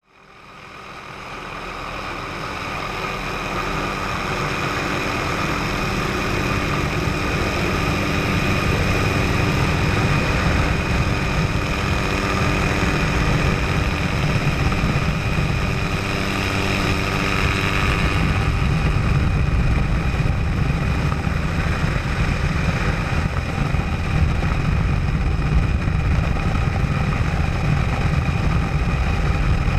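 Tour helicopter's turbine engine and rotor running, a steady loud drone with a high whine over a low rumble. It swells over the first several seconds, and the low rumble grows heavier about two-thirds of the way through.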